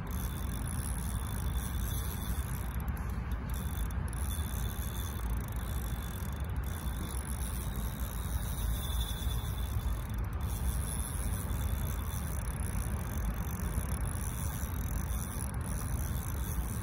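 Steady low rumble of wind buffeting the microphone, rising and falling in strength.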